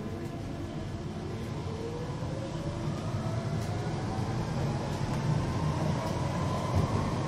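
A London Underground Central line electric train's traction motors whining, the whine rising steadily in pitch and growing louder as the train gathers speed.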